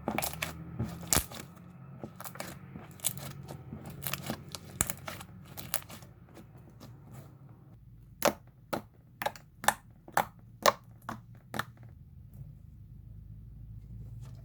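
Blue slime being squeezed and pressed by hand, crackling with clicks and pops of trapped air. From about eight seconds in, the pops come singly and sharply, about two a second, then stop near the end.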